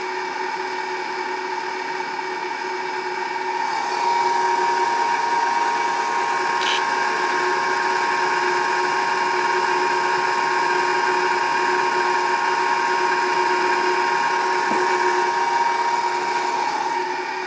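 Baldor 7.5 hp three-phase electric motor running steadily on an undersized 400-watt Mitsubishi inverter, a constant hum and whine made of several held tones. It grows louder about four seconds in and eases back near the end, with a short click about seven seconds in.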